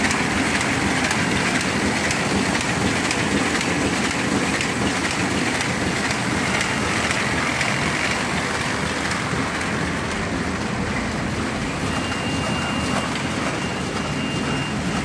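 Paper bag making machine running at production speed, about 120 bags a minute: a steady, dense mechanical clatter and whir made of rapid fine ticks. A faint high whine joins near the end.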